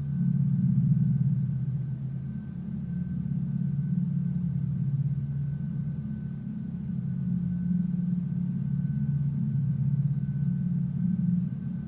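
A low, steady rumbling drone that comes in suddenly at the start and holds, with a faint thin high tone above it.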